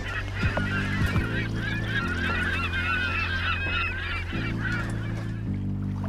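A flock of birds calling, many short overlapping calls in a dense chatter. Underneath, background music holds low sustained chords that change a few times.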